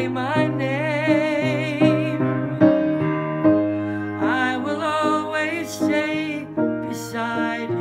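A man singing with a wide vibrato on long held notes, accompanying himself with piano chords.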